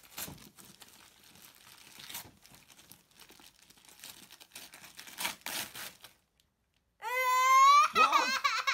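Wrapping paper tearing and crinkling in short rustles as a young child unwraps a present. About seven seconds in, after a brief pause, the child lets out one loud, long, high-pitched cry.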